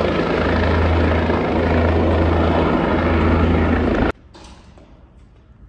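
Helicopter flying overhead: loud, steady rotor and engine noise with a strong low hum, cutting off suddenly about four seconds in.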